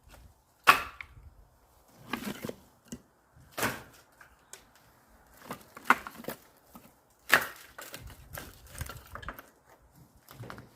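Axe splitting firewood: a series of sharp, cracking strikes on wood about every one and a half to two seconds.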